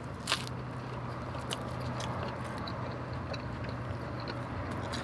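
Close-up chewing and biting while eating a birria taco, with scattered small wet mouth clicks, one sharper click about a third of a second in. A steady low hum runs underneath.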